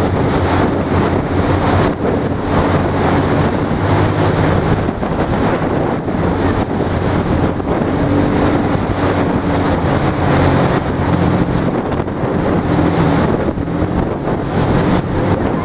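Wind buffeting the microphone over the rush of churning sea water, as a pilot boat runs at speed alongside a moving cruise ship's hull. A steady low engine hum runs under it.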